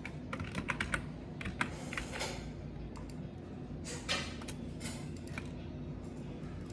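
Typing on a computer keyboard: a quick run of keystrokes in the first second, then scattered key presses and a couple of short rustles, over a steady low hum.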